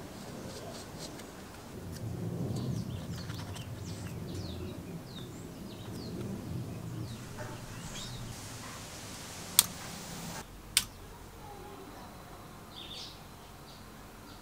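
Quiet handling noise with two sharp clicks about a second apart just past the middle, and faint bird chirps in the background.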